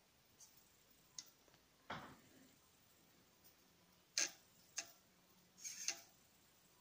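Faint, scattered light clicks and knocks from a 1/43-scale RC crawler's small plastic body and rubber tyres bumping over the hard terrain of a tabletop diorama, the sharpest click about four seconds in and a few more just before six seconds.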